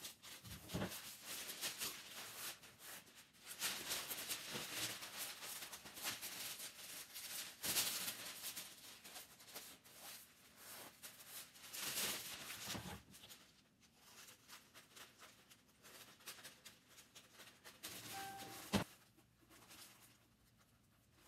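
Sheet of baking paper rustling and crinkling as it is handled and pressed into a cardboard box, loudest in three swells in the first half, then quieter handling with a sharp click near the end.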